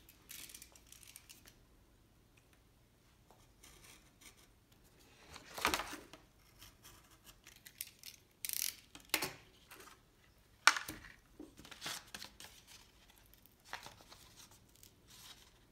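Utility knife slicing slits into red paper card laid on a cardboard underlay: a few short scraping cuts, with paper rustling and a sharp click about eleven seconds in.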